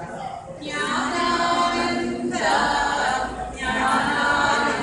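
A group of voices chanting a devotional hymn in unison, unaccompanied, in three long phrases with held notes.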